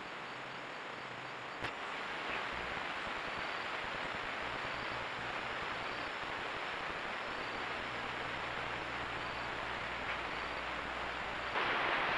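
Steady outdoor hiss, like wind in foliage, with a faint high chirp repeating about once a second. A single click comes just under two seconds in, and the hiss grows louder near the end.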